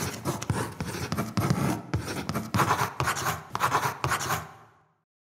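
Scribbling sound effect: a pen drawing in a quick series of scratchy strokes, fading out about four and a half seconds in.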